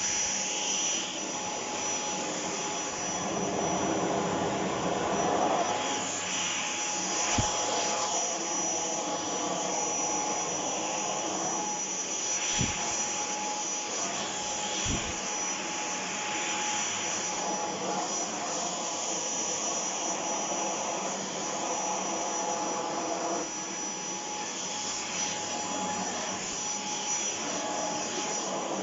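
Shark PowerDetect corded stick vacuum running steadily, a constant airflow rush with a thin high motor whine. There are a few brief low knocks along the way.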